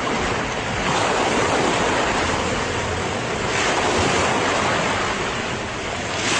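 Recording of ocean waves on a shore: a steady rush of surf that eases briefly and then swells again near the end.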